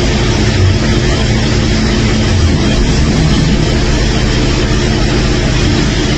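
Loud, continuous snoring with a rapid low flutter, steady throughout with no pause for breath.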